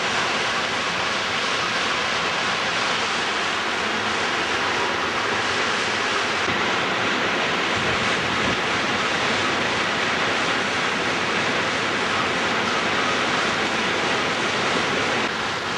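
Hurricane-force wind blowing steadily through trees, mixed with driving rain: a continuous loud rushing noise.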